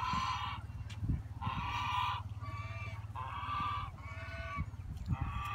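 Domestic goose honking repeatedly, about six honks in quick succession, the longest near the start and middle.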